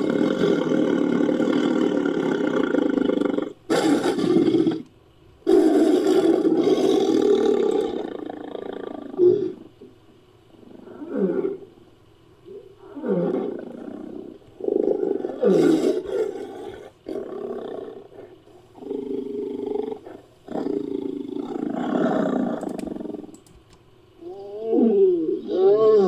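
Designed big-cat creature sound effect for a sabre-toothed Asiatic lion, built from lion and tiger roars: a long drawn-out roar first, then a string of shorter roaring calls about every one to two seconds, many falling in pitch.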